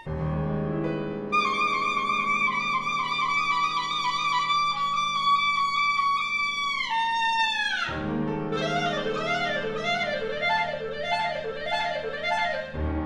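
Solo clarinet with grand piano: a low piano chord sounds, the clarinet holds a long high note that bends down in pitch just before eight seconds in, then after another piano chord it plays fast, wavering repeated figures over the sustained piano, with a further low chord near the end.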